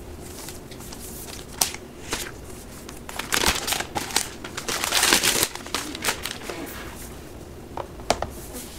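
Thin plastic protective film crinkling and rustling as it is peeled off a new laptop's aluminium case, loudest in the middle, with a couple of sharp handling clicks.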